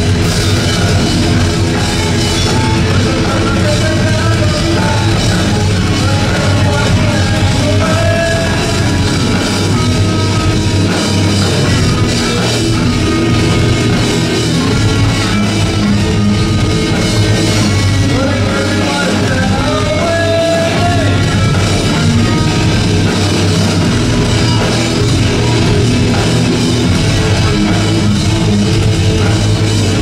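Live rock band playing loud and steady, with electric guitars, bass and a drum kit, and a female singer's voice coming in at times.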